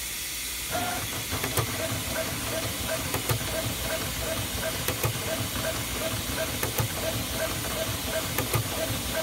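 Graphtec flatbed cutting plotter working, starting up about a second in: a steady hiss with a short motor tone repeating about three times a second as the cutting head steps across the sheet. Sharp clicks come roughly every second and a half.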